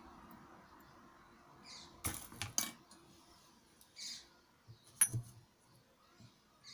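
A faint trickle of herbal oil draining through a cloth-lined sieve into a steel pot fades out, then a few sharp clicks and knocks of the sieve and pot being handled about two seconds in. A single sharp clink, the loudest sound, comes about five seconds in as a glass jar is picked up.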